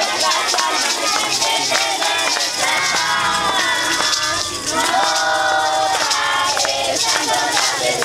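Maracas and small hand rattles shaken in rhythm by a group of children, along with music and a crowd of voices.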